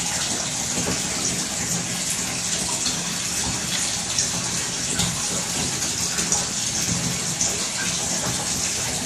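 Bath tap running steadily, water gushing into a filling bathtub.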